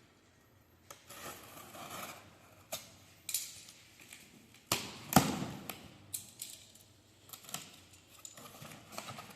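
A cardboard box being opened and its contents handled: scattered clicks, knocks and rustling, with a sharper knock about five seconds in.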